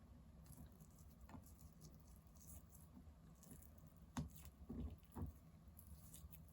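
Faint soft, wet taps and squishes of mentaiko (spiced pollock roe) being scraped out of its skin, with a few louder taps about four to five seconds in.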